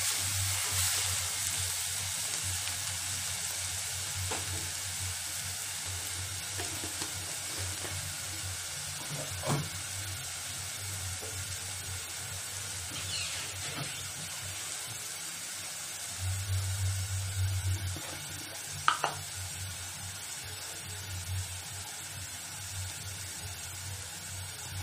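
Chopped onions frying in sesame oil in a kadai: a steady sizzle that eases a little over the first few seconds, with a wooden spatula stirring at the start and a few light knocks later. The onions are being softened, not browned.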